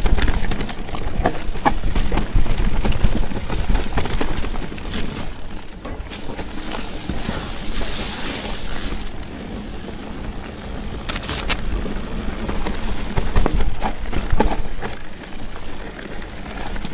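Mountain bike ridden over rough trail: a heavy wind rumble on the microphone with scattered rattles and knocks from the bike.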